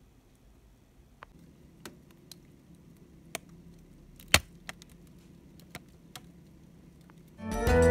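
Sparse light clicks and taps of packaging being handled, a few seconds apart, the loudest about halfway through. Background music with keyboard tones comes in near the end.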